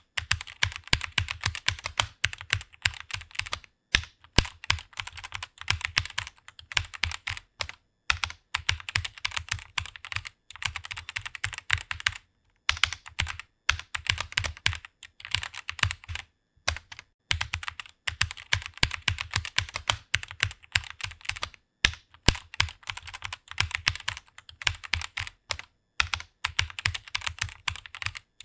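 Rapid typing on a computer keyboard: a fast run of key clicks, broken by short pauses every few seconds.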